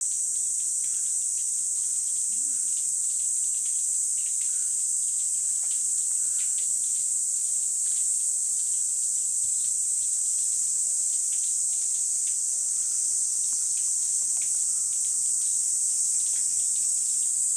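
A chorus of summer cicadas giving a steady, loud, high-pitched drone that never lets up.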